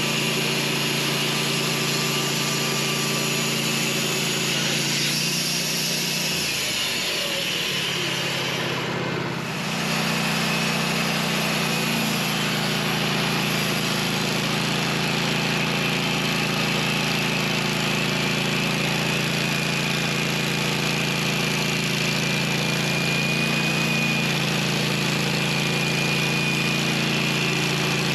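An engine running steadily at a constant speed. About six seconds in, its note sags for a few seconds, then comes back to the same steady running just before ten seconds in.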